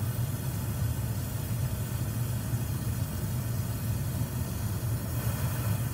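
Oxy-acetylene torch flame burning steadily on a casting crucible, a continuous low rushing rumble, as it melts the silver charge.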